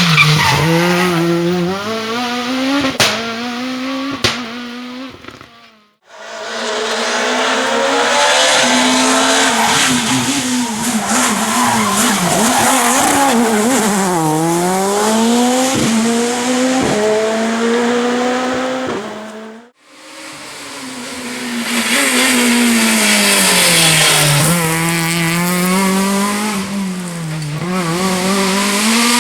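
Naturally aspirated four-cylinder rally car engines running hard, pitch climbing through the gears and falling on downshifts, in three passes joined by sudden cuts. Two sharp cracks sound around 3 and 4 seconds in.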